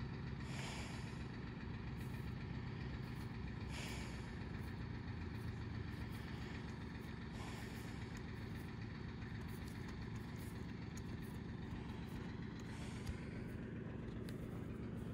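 Steady low drone of an idling engine, with a few brief soft hisses over it.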